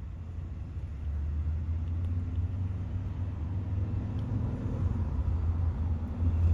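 A vehicle's engine idling: a steady low rumble that gets a little louder about a second in.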